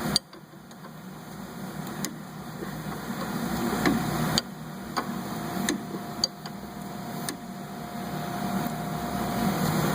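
Wrench work on the nut of a sway bar end link: a handful of sharp metal clicks and knocks at irregular moments as the 18mm wrench is turned and repositioned. Under them runs a steady, slowly rising mechanical hum.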